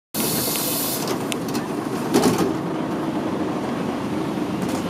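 Inside a route bus standing with its engine idling, a steady hum. A hiss fills the first second, and a few clicks and a knock come about two seconds in.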